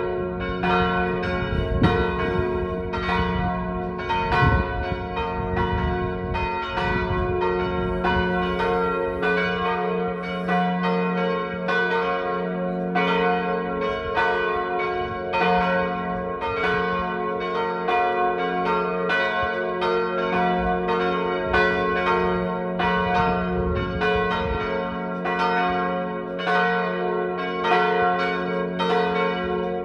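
Church bells tuned to G-flat, B-flat and D-flat swinging in full peal, their strokes following one another in a steady, overlapping ringing.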